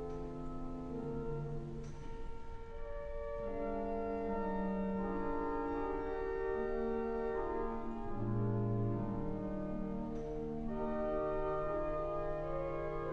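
Pipe organ playing a slow piece in several voices, sustained chords that move from note to note, with a deep pedal note entering about eight seconds in.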